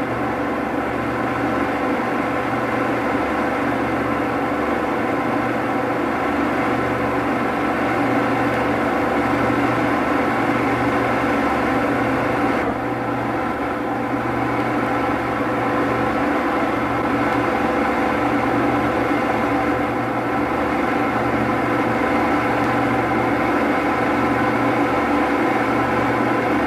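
A steady mechanical hum and whir with several held tones over a low pulsing drone, unchanging apart from a slight shift about halfway through.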